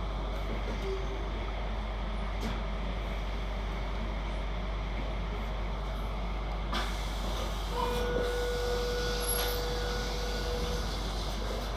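Passenger train running between stations, a steady rumble heard from inside the carriage, with a few faint clicks and a thin steady tone that sounds for about three seconds in the second half.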